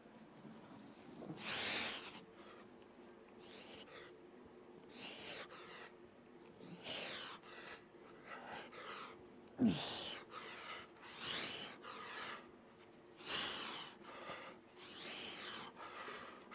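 A man's hard, forceful breaths, one roughly every one and a half to two seconds, as he strains through reps of kneeling cable crunches at 115 pounds; about ten seconds in comes one louder, short grunt that falls in pitch.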